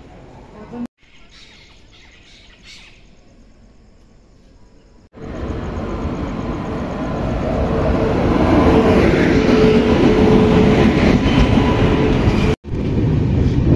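Passenger train rolling in along the station platform. The rumble of its wheels on the rails comes in suddenly about five seconds in, grows louder and stays loud, with a faint steady whine over it. Before that there are only quieter platform sounds.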